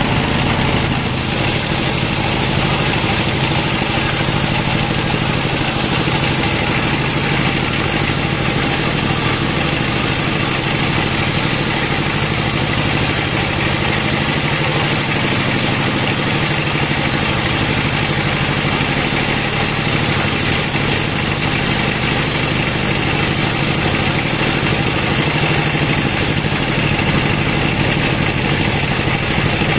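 Band sawmill running as its vertical blade rips lengthwise through a teak log on the carriage: a steady, unbroken mechanical drone from the machine's drive, its pitch wavering slightly under the cutting load.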